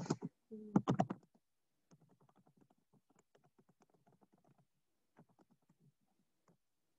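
Computer keyboard typing: faint, quick key clicks as a short sentence is typed, after a brief voice sound in the first second.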